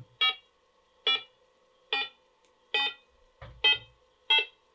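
BBC Master computer's speaker giving short, buzzy beeps about once every 0.8 seconds, six in all, while its disk formatter program formats a floppy disk; a faint steady hum underneath, and a brief low thud about three and a half seconds in.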